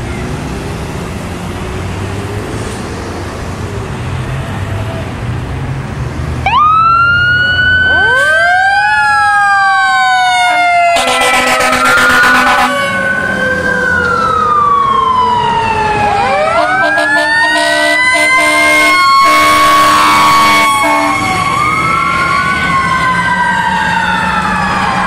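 Fire apparatus responding: diesel engines rumble, then about six seconds in sirens start wailing, each one climbing quickly and falling slowly, over and over and overlapping. Loud air-horn blasts sound over the sirens twice, once briefly and once for several seconds in the second half.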